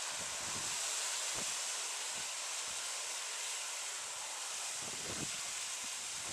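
Wind gusting over the microphone, a steady hiss broken by a few low buffeting thumps.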